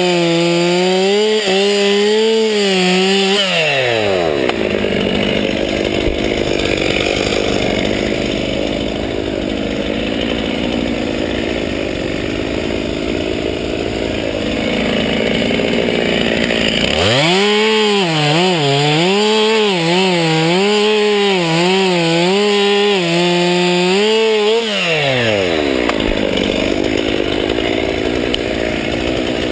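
Stihl chainsaw cutting into a tree trunk at high revs, its pitch wavering under the load of the cut. The revs drop away about four seconds in, then there is rougher running with no clear pitch. The high revs return at about seventeen seconds for another spell of cutting, and they fall off again at about twenty-five seconds.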